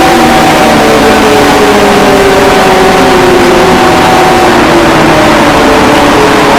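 Loud, heavily distorted emergency-alert alarm audio: several sustained tones sliding slowly downward in pitch together over a harsh, constant hiss.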